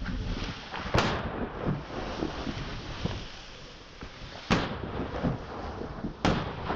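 Three rifle shots fired at a Cape buffalo, the first about a second in and the others roughly three and a half and then two seconds later, with rustling and low thuds between them.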